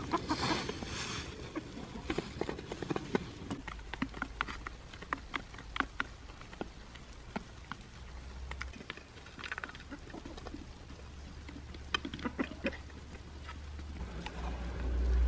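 Chickens pecking at chopped greens on snowy ground: a quick, irregular run of sharp beak taps. A low rumble comes in near the end.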